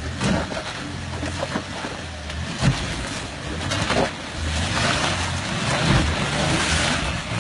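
Off-road SUV engine running under load at low speed as the 4x4 crawls up over rocks, with tyres scrabbling on stone and mud and several sharp knocks.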